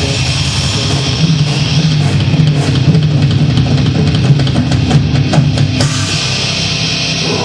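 Live heavy metal band playing loud: distorted electric guitars and bass over a pounding drum kit. About six seconds in, the drum hits stop and the guitars ring on.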